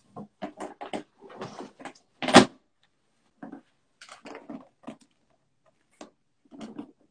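Someone rummaging through oil paint tubes and painting supplies: a series of short knocks and clatters, with one loud clunk about two and a half seconds in.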